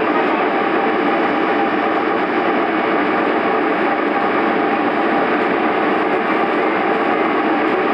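Steady hum of a stationary diesel railcar idling, heard from inside the carriage.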